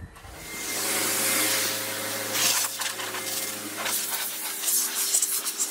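Air blower drying the car: a motor's steady hum under a loud rush of air that starts just after the beginning, surging and easing as the nozzle is moved about.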